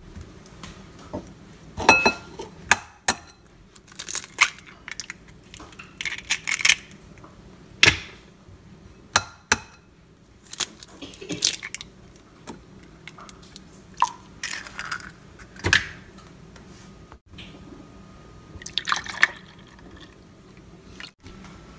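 Eggs tapped and cracked against a ceramic bowl, giving a scattered series of sharp clicks and knocks, with egg dripping into the bowl. Near the end milk is poured into the bowl from a plastic measuring cup.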